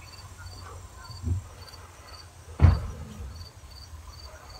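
Insect chirping steadily at a high pitch, about two short chirps a second. A dull thump sounds just past a second in, and a louder one about halfway through.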